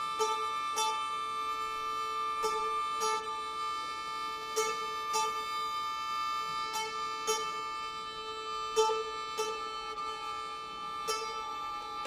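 Chamber music for mandolin, two violins and double bass: high notes held steady throughout, with pairs of plucked notes about every two seconds, the two notes of each pair about half a second apart.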